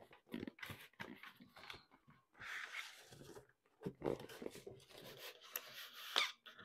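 Cardboard rubbing and scraping as a snug cardboard box is forced into its cardboard sleeve, with scattered light knocks and taps and one sharper tap near the end. The tight fit makes it a struggle.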